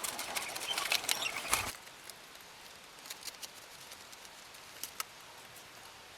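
A dense patter of sharp clicks and rustles for the first second and a half or so, then a quiet background with a few scattered clicks.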